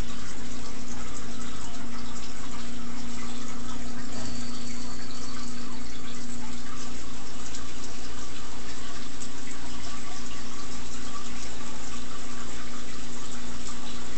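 Home aquarium's filtration running: a steady rush of churning, bubbling water with fine crackle, over a steady low hum.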